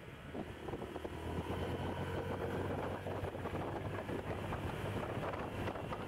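Motorcycle engine running at road speed, a little louder after about a second in, with wind buffeting the microphone.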